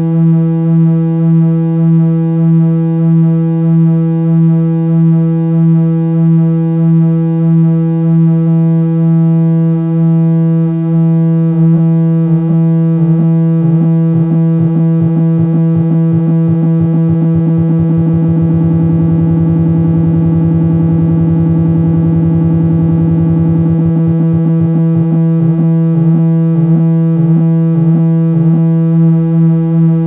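A steady synthesizer tone run through the Angel Chorus, a PT2399-based Eurorack chorus module, with its pitch gently wobbling in a slow chorus sway. About twelve seconds in, the wobble speeds up into a fast fluttering warble that turns into a buzzy rasp around the middle, then slows back to a gentle wobble near the end as the modulation rate is turned up and down.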